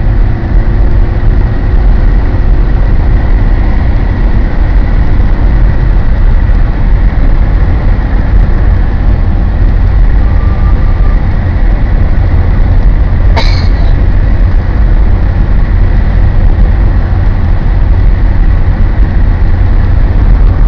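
A car driving along a road, heard from inside the cabin: loud, steady engine and road noise with a heavy low rumble. A single sharp click sounds about two-thirds of the way through.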